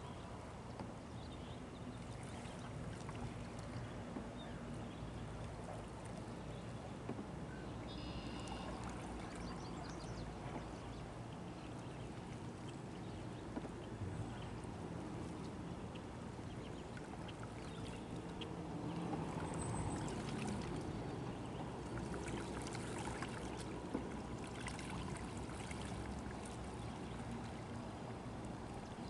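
Otter tail canoe paddle strokes in calm water: faint dipping, trickling and dripping of the blade, over a steady low rumble.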